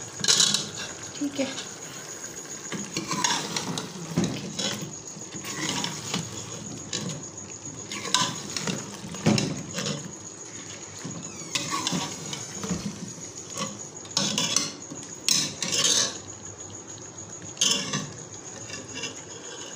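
Steel spoon scraping and clinking against the side of an aluminium pressure cooker as mutton and potato pieces are stirred through a thick curry masala, in irregular strokes a second or more apart. A light sizzle underneath as the potatoes fry in the masala.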